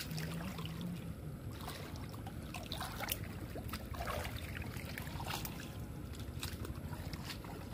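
Steady low rumble with scattered short rustles and soft clicks, from people brushing through trellised bitter gourd vines.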